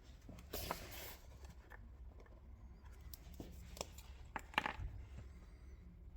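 Faint scratching of a marker tracing around a steel lock-pick blank onto acrylic sheet, with a few small clicks and taps as the pieces are handled.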